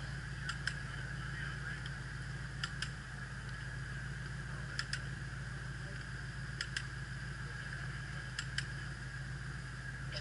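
A steady low mechanical hum, with a pair of sharp clicks repeating about every two seconds.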